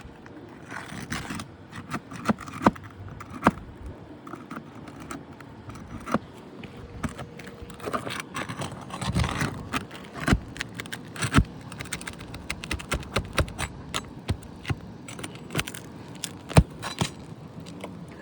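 Asphalt roof shingles being pried up and their seal strips broken by hand: irregular scraping, crackling and sharp clicks and knocks of a metal tool against brittle shingles, with a few louder knocks.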